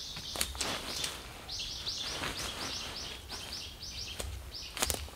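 A bird singing a rapid run of repeated high chirps, about four a second, with scattered clicks and knocks alongside.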